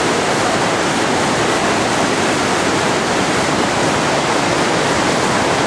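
Steady, loud rush of fast-flowing water from a swollen stream and the small waterfall above it.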